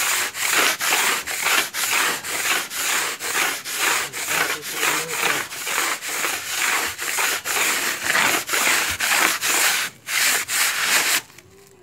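A coconut-husk floor polisher (bunot) scrubbed back and forth under a bare foot across the floor, making a rhythmic rubbing at about two strokes a second. It pauses briefly about ten seconds in and stops near the end.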